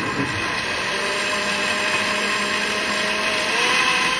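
Countertop blender with a glass jug running at high speed, puréeing watermelon chunks into juice. Its steady motor whine drops slightly in pitch about three and a half seconds in.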